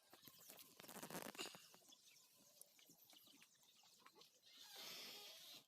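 Near silence: faint scattered ticks, with a soft hiss rising near the end.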